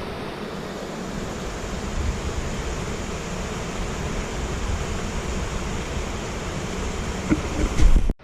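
Rushing water of a rain-swollen stream and small falls, a steady hiss, with wind buffeting the microphone in low rumbles. A few louder low thumps come near the end, and the sound then cuts off abruptly.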